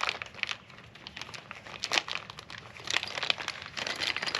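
Plastic packaging crinkling in irregular bursts as the running-board kit's bagged flag bolts are handled.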